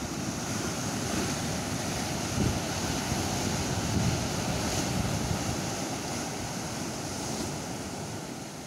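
Sea surf breaking and washing over rocks, with wind buffeting the microphone.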